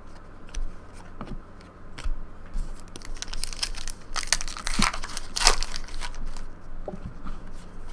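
Foil wrapper of a trading-card pack crinkling and tearing as it is opened, with light clicks of cards being handled; the crinkling is densest and loudest in the middle few seconds.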